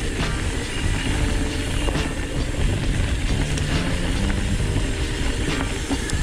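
Mountain bike riding fast down a dirt trail: steady wind and tyre rumble, with scattered knocks and rattles from the bike over roots and rocks. Background music plays underneath.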